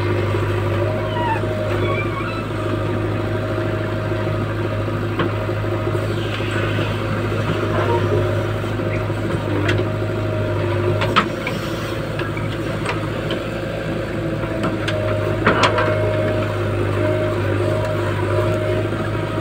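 Diesel engine of a JCB 3DX backhoe loader running steadily under load while the backhoe digs and swings soil into a tractor trolley. A few sharp knocks come about halfway through and again a few seconds later.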